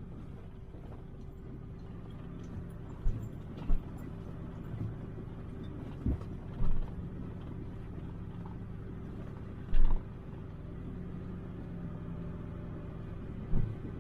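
Four-wheel-drive vehicle driving slowly on a rough sandy trail, heard from inside the cab: a steady low engine and road hum, broken by several short knocks and thumps from bumps in the track.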